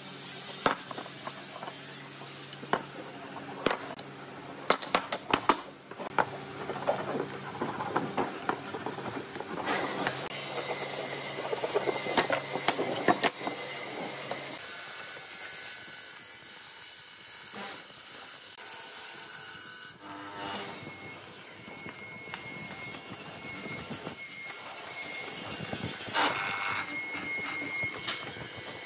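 Workshop sounds: wooden pieces and hand tools clicking and knocking on a workbench, then a steady machine hiss with a thin high whine through the second half.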